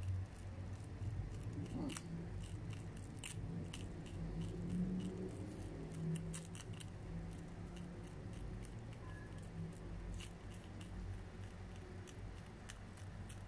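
Prairie dog gnawing and crunching a dry biscuit with its front teeth: irregular crisp clicks, over a low steady hum.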